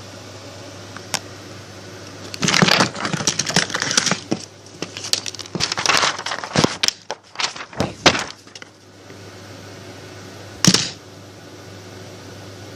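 A dense run of sharp clicks, knocks and crackles lasting about six seconds, with a single click before it and another near the end, over a steady low hum.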